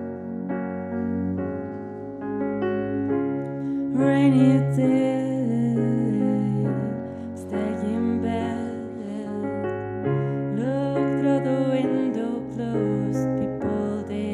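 Woman singing live to her own electric piano accompaniment. The keyboard plays alone at first, and her voice comes in about four seconds in, a slow, gentle melody over sustained chords.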